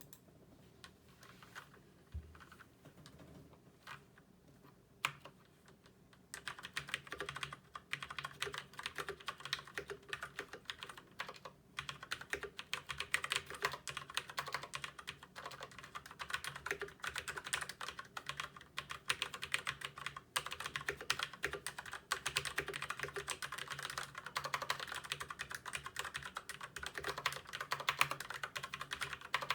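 Typing on a Filco Majestouch 2 mechanical keyboard with Cherry MX Brown (tactile, non-clicky) switches. A few separate keystrokes at first, then steady fast typing from about six seconds in.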